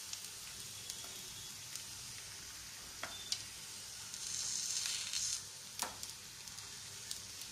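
A rice-flour patishapta crepe sizzling in a non-stick frying pan as it is rolled up with a wooden spatula, with a few light knocks of the spatula against the pan. The sizzle swells for about a second a little past the middle.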